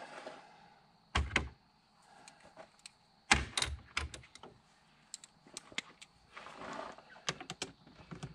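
Hand tools and plastic engine-bay parts knocking and clicking as they are handled, with two louder thuds about a second and about three seconds in, then a run of small clicks.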